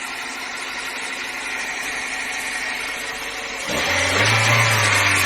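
Cold car engine idling steadily, then suddenly louder about three and a half seconds in. The owner blames its poor running on bad petrol.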